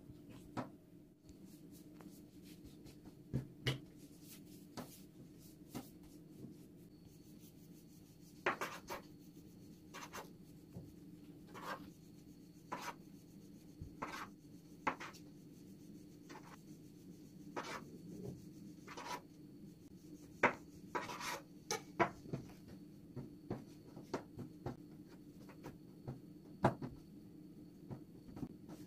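Hands pressing and rolling dough on a wooden tabletop, then a knife cutting through a dough log with repeated sharp taps of the blade on the wood, and dough pieces set down on the table. A steady low hum runs underneath.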